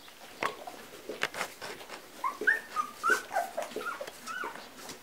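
Two-week-old Labrador puppies squeaking and whimpering while nursing: a run of short, high squeaks starting about halfway through, after a few soft clicks.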